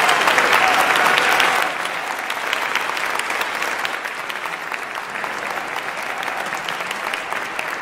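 Audience applauding. The clapping is louder for about the first second and a half, then drops to a steady, slightly quieter level.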